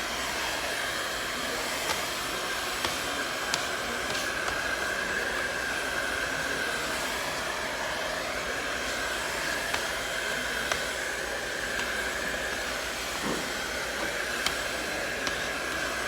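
Heat gun blowing steadily while it warms wallpaper, a continuous rush of air with a steady whine, with a few faint ticks.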